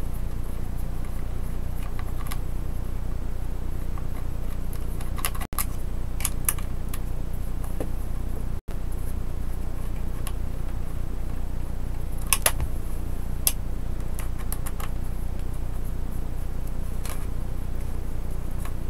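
Steady low hum with scattered light clicks and taps of a small screwdriver working the screws out of the plastic underside of a Samsung GT-8000 laptop. The sound cuts out for an instant twice, about a third and half of the way through.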